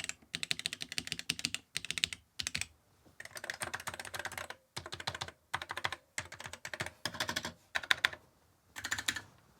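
Rapid typing on Amiga keyboard keys: bursts of quick key clacks with short pauses between them. The keyboards are the new A1200NET with custom non-tactile mechanical switches and an original A500 keyboard.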